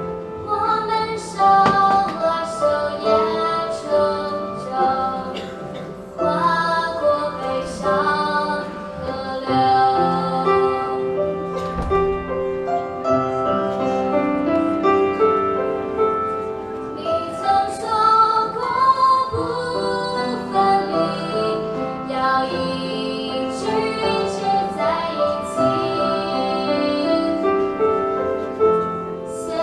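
Female voices singing a slow Mandarin pop ballad over instrumental accompaniment.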